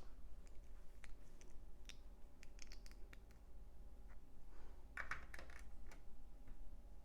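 Plastic LEGO bricks being handled and pressed together: scattered light clicks, with a busier cluster of clicks and rattling about five seconds in.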